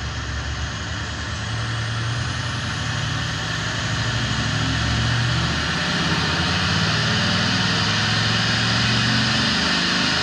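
Pickup's diesel engine running under load on a chassis dynamometer, its pitch and level climbing slowly and steadily, over a loud steady hiss.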